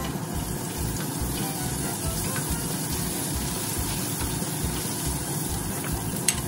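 Food sizzling as it fries in oil in a wok on a gas stove, stirred with a wooden spatula, a steady hiss throughout. A sharp clink near the end.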